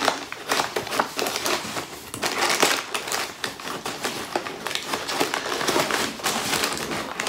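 Packing material crinkling and rustling inside a cardboard shipping box as hands dig through it and pull out a book, a steady run of dense crackles.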